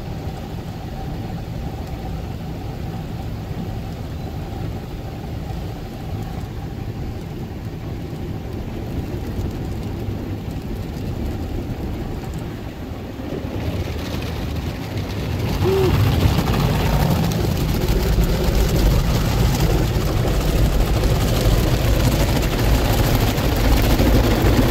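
Automatic soft-cloth car wash heard from inside the car: spinning cloth brushes and water working over the body, with a steady machinery hum. The rushing noise grows much louder about two-thirds of the way through.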